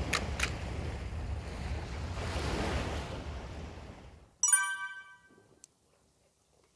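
Surf washing in on a beach, with two quick high clicks near the start. The surf fades out and a bright bell-like chime rings out about four and a half seconds in, dying away over about a second, then near silence.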